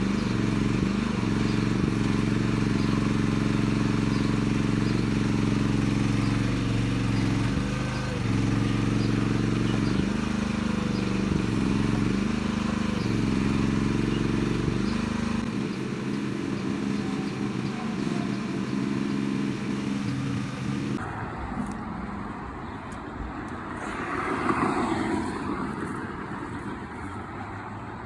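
Mini-excavator engine running steadily, its pitch dipping briefly several times as it is loaded. About three quarters of the way through it gives way abruptly to a quieter, rougher outdoor sound.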